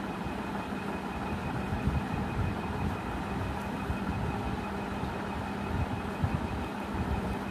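Steady low rumbling background noise with a faint constant hum and a thin high tone, unchanged throughout.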